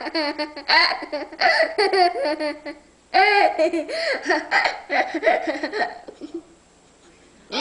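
Young child laughing hard in two long bouts of high-pitched giggles, the second starting about three seconds in and trailing off about a second before the end.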